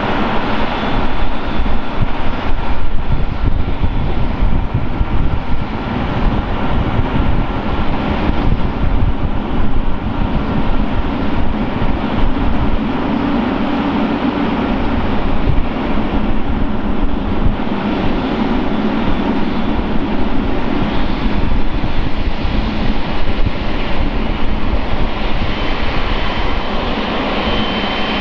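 Boeing 777-300ER's twin GE90-115B turbofan engines running as the jet rolls along the runway and taxis, a loud, steady noise with a heavy rumble. A thin, high whine comes in near the end as the aircraft turns toward the listener.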